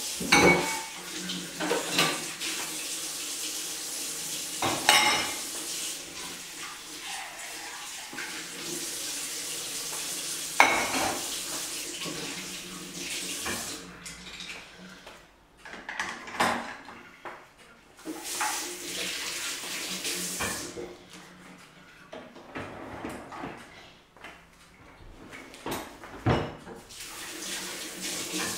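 Ceramic dishes clinking and knocking as bowls and plates are set into a dishwasher rack, several sharp clinks, over long stretches of running tap water.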